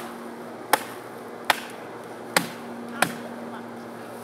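A mattock's blade chopping into the wood of a tree stump: four sharp chops, a little under a second apart.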